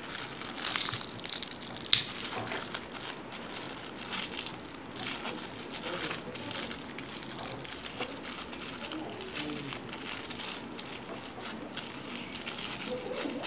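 Small clear plastic packet crinkling and crackling irregularly as fingers work it open, with one sharper crack about two seconds in.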